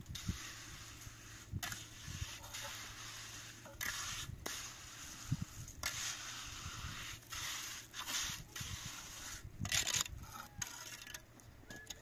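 Steel mason's trowel scraping and spreading cement mortar along the top of a hollow concrete block wall: repeated gritty scrapes with short breaks between strokes.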